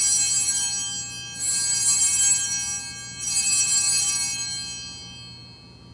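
Altar bells (sanctus bells) rung three times about two seconds apart at the elevation of the consecrated host, each ring a bright jangle of high tones that dies away; the last fades out near the end.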